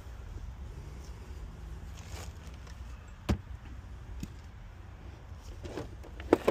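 Handling noises of tools being picked up and set down: a single sharp knock about three seconds in, then a few clicks and clunks near the end, over a low steady rumble.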